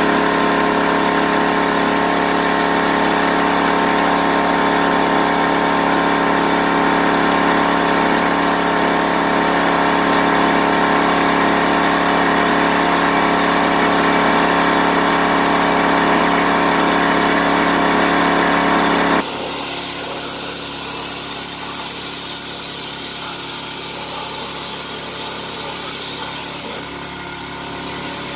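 Pressure washer running steadily while its water jet sprays the underside of a car, a constant motor hum under a hiss of spray. About two-thirds of the way in the sound drops suddenly to a quieter, still steady level.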